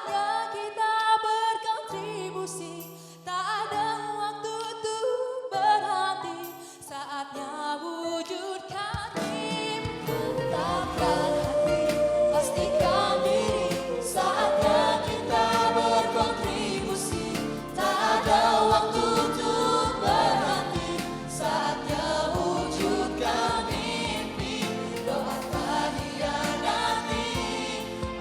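Vocal group singing in choir-like harmony over music. The opening stretch is sparse, with sustained accompanying notes; about nine seconds in, a full band with drums and bass comes in.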